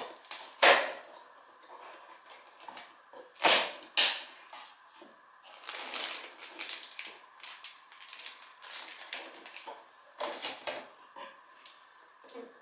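Cardboard Playmobil advent calendar being handled: irregular rustling and tapping of the box and its paper doors, with a few louder knocks in the first few seconds, and the crinkle of a small plastic parts bag being pulled out near the end.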